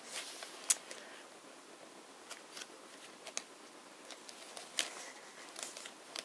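Paper pages of a handmade junk journal being handled and turned: faint rustling with a scattering of light clicks and taps.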